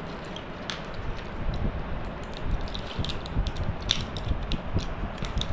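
Dry, spiny nickernut (Caesalpinia) seed pods being handled and pried open by hand close to the microphone: irregular small clicks and crackles over a steady rustling hiss and low handling bumps.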